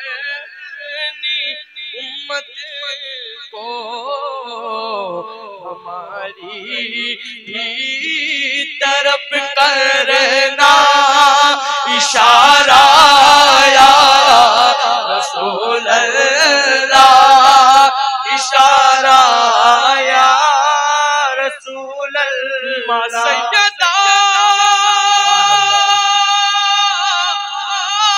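Male voices singing a naat through microphones in long, drawn-out wavering phrases that swell to their loudest around the middle. Near the end comes one long held note.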